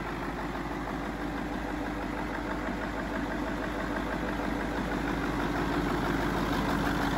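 Doosan V158TIL 14.6-litre twin-turbo V8 marine diesel with a mechanical Bosch inline injection pump, running at a steady idle with no gearbox connected. It gets slightly louder toward the end.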